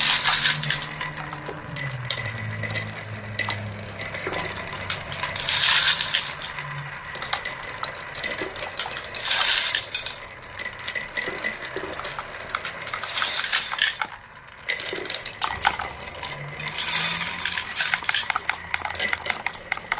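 Marbles rolling and clattering along a toy marble run: many small clicks and clinks, with louder rushes of rattling about six and ten seconds in and again near the end.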